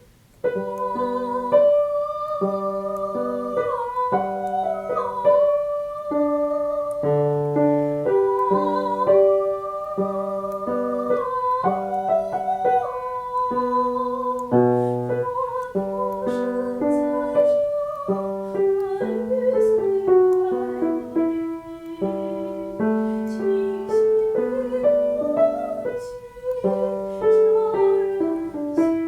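A woman's voice singing a vocal exercise on the vowel 'ah' with piano accompaniment, holding long notes with vibrato over piano chords.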